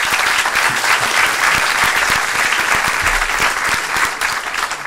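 Conference audience applauding, dense steady clapping from a large seated crowd that eases off slightly near the end.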